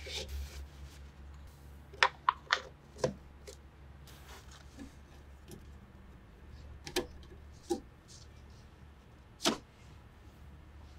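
A rag rubbing over a master cylinder's plastic brake-fluid reservoir, then sharp clicks and taps as hands handle the metal brake lines and wire loom: four in quick succession about two seconds in, and three more spread through the rest. A low steady hum runs underneath.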